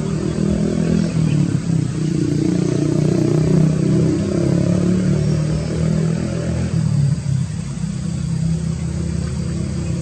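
A motor vehicle's engine running close by, a steady low drone that swells slightly a few seconds in and eases off in the second half.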